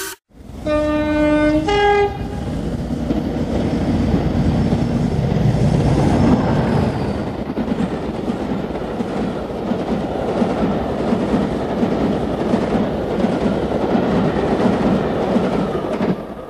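Train horn giving two short blasts, the second shorter and higher, then a train running on the rails with a steady rumble and wheel clatter, fading near the end.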